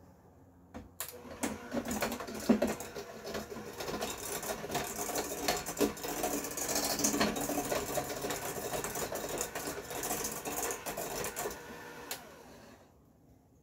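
Electric hand mixer running, its beaters whirring through creamed butter, sugar and egg yolk and clicking against the stainless steel bowl. It starts about a second in and stops about a second before the end.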